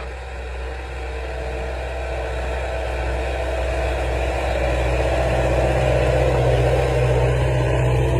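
Belarus tractor's diesel engine running steadily under load while pulling a plough through the soil, getting louder as the tractor comes closer.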